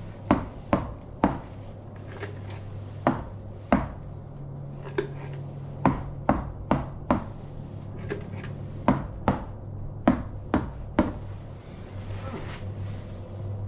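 Stirring stick tapping and knocking against the inside of a cup as acrylic paint is mixed: about fifteen sharp, irregular taps that stop a couple of seconds before the end.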